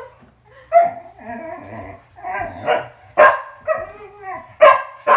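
Dog barking in short, sharp barks, about half a dozen spread over a few seconds, during excited play.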